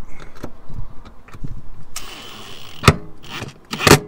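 Cordless drill-driver running in short bursts as it drives a screw into a freshly drilled hole in a trailer floor, with scattered clicks and knocks and one sharp knock about halfway through.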